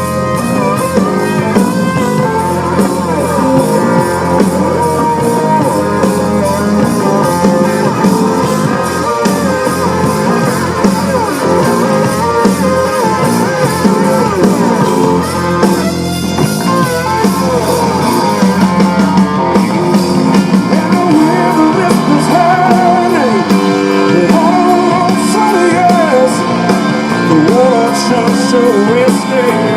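Live blues-rock band playing an instrumental passage: an electric guitar lead with bending notes over the band.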